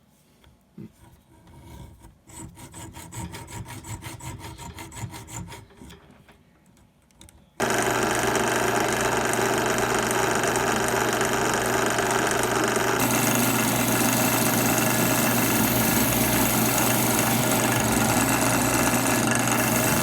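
Quick, quiet rubbing strokes of hand work on a hammer, then a power tool suddenly starts loud about seven and a half seconds in and runs steadily, its sound shifting about halfway through.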